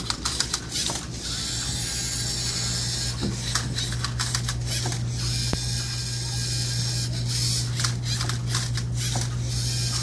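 LEGO Mindstorms EV3 Rubik's Cube-solving robot at work: motors whirring and the cube clacking as the flipper arm tips it and the turntable turns it, in irregular clusters of clicks over a steady low hum.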